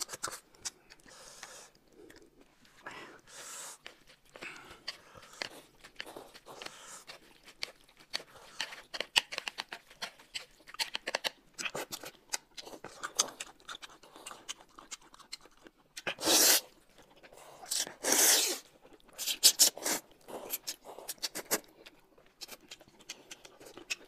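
Close-miked eating sounds: chewing and crunching food with many small clicks and crackles, and two louder bursts about 16 and 18 seconds in.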